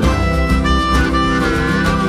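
Background country-style instrumental music with acoustic guitar and held, slightly wavering lead notes.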